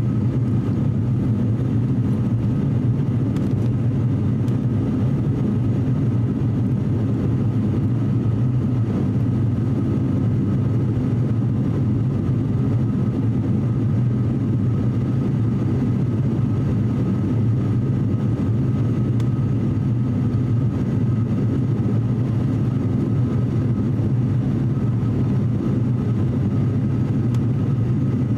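Cabin drone of an ATR 42-600 turboprop airliner's Pratt & Whitney PW127 engines and propellers in the climb after takeoff: a steady low hum with a thin steady whine above it.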